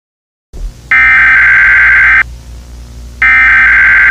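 Emergency Alert System SAME header tones: loud, harsh, buzzy data bursts of about a second and a quarter each, separated by about a second. The first starts about a second in and the second near the end, over a low hum that begins just before them out of silence.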